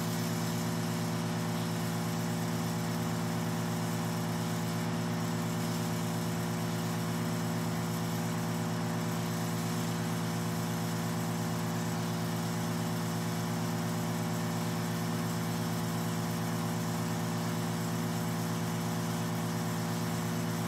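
Crystal microdermabrasion machine running its suction pump: a constant, steady hum with an airy hiss over it.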